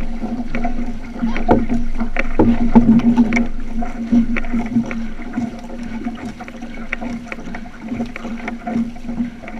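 Water splashing and slapping along the hull of a moving outrigger canoe, with irregular paddle strokes, over a steady low hum. The splashing is louder in the first half and eases off after about four seconds.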